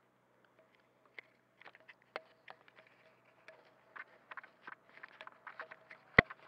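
Handling noise from fingers rubbing and tapping on a small RunCam action camera: irregular small clicks and scrapes, with one sharp knock about six seconds in.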